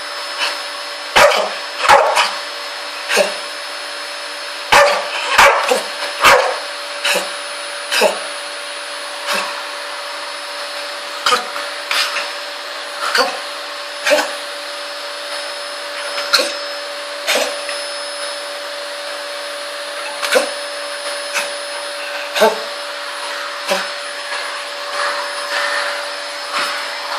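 A dog barks repeatedly at a running vacuum cleaner: sharp single barks about once a second, bunched closely over the first several seconds and more spaced out later, over the vacuum motor's steady hum.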